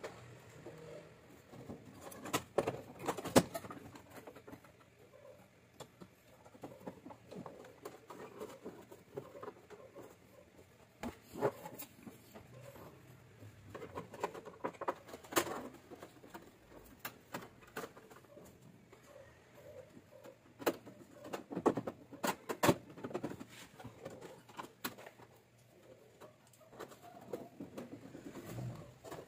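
Irregular sharp clicks and knocks of sheet metal as a window air conditioner's control-panel bracket is handled and fitted back into place, with light scraping between. The loudest knock comes about three seconds in.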